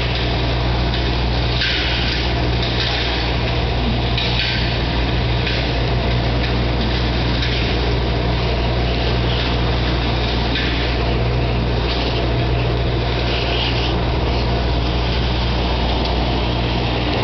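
Cyclone-type industrial dust collector with a 3 HP motor running steadily: a constant low motor hum under a steady hiss, the higher hiss swelling now and then.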